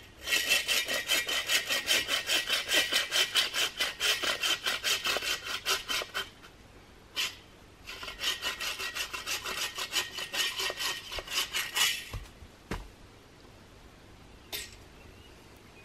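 A hand saw cutting through a dead branch with fast back-and-forth strokes. The sawing breaks off briefly about halfway through, then starts again. A single thump follows after the sawing stops.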